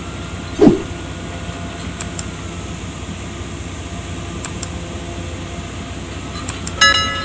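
Steady low hum of an idling diesel engine. Less than a second in there is a loud, brief sound that falls in pitch, and near the end a short tone with overtones.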